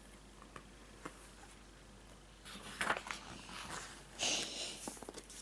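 Rustling and handling noises: a few faint clicks in the first half, then a run of rustling from about halfway in to the end.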